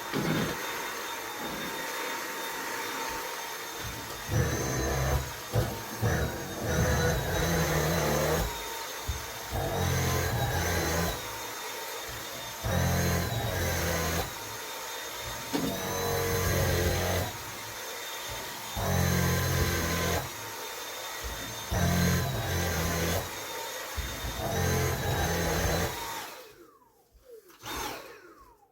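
Dyson vacuum cleaner running with a steady motor whine. Every two to three seconds comes a louder, lower stretch, as the head is pushed back and forth across the floor. About 26 seconds in the motor is switched off and winds down, its whine falling away.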